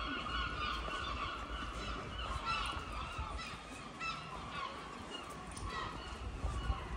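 Gulls calling repeatedly overhead, many short cries overlapping into a continuous chatter, with a low rumble underneath.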